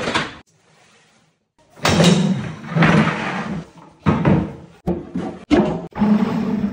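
A series of loud knocks, thuds and clattering from wooden kitchen cabinet parts being handled and fitted: about six separate bursts, the first starting a couple of seconds in, after a short quiet spell.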